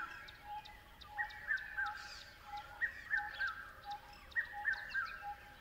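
Birds calling: a phrase of a few quick, hooked chirps repeats about every one and a half seconds, over an even run of lower notes about three times a second.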